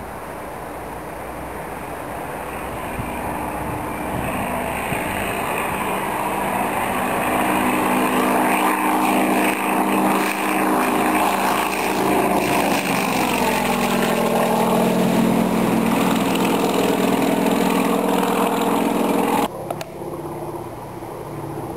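A light propeller plane's piston engine at full takeoff power, growing louder as the plane accelerates and climbs past. Its pitch falls as it goes by, and the sound cuts off suddenly near the end.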